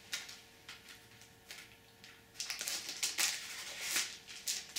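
Clear plastic shrink-wrap crinkling as it is peeled off a CD case: scattered rustles that get denser and louder in the second half.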